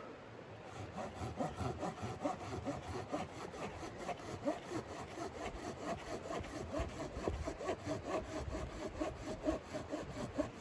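Small red-handled hand saw cutting into a birch log: a steady run of quick back-and-forth rasping strokes that starts about a second in and stops near the end.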